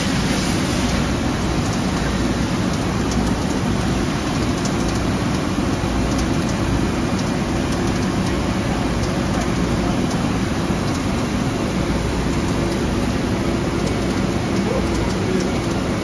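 Okamoto OGM12-20UB CNC cylindrical grinder running a grinding cycle, its wheel working a workpiece under flood coolant: a steady hum with a constant hiss of coolant over it.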